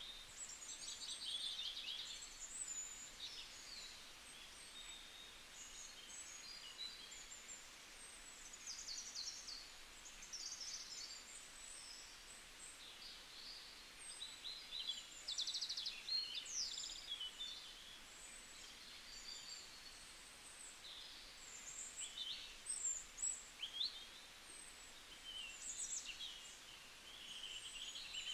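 Small birds chirping, many short high calls and quick trills scattered throughout, over a faint steady hiss.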